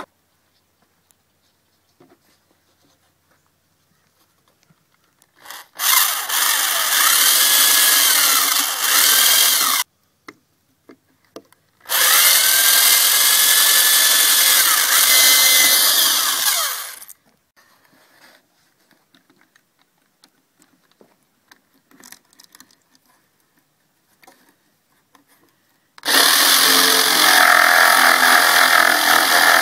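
Electric drill boring a hole through 3/8-inch plywood in two steady runs of about four and five seconds. Near the end a jigsaw starts and runs steadily, its blade set in the drilled hole.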